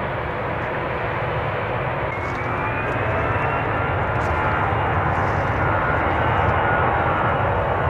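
Airbus A321 jet engines at takeoff thrust on its departure roll: a steady, dense rumble and hiss that grows slightly louder partway through. A faint rising whine comes in about two seconds in.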